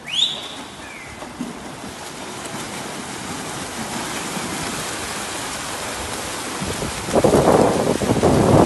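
Several swimmers sprinting front crawl: a steady wash of splashing from their kicks and strokes that grows much louder and choppier about seven seconds in as they pass close by. It opens with a brief high-pitched start cue.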